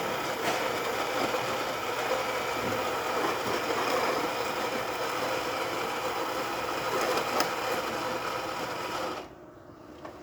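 Gaggia Velasca Prestige super-automatic espresso machine running a brew cycle: a steady mechanical hum with a few clicks, stopping suddenly about nine seconds in.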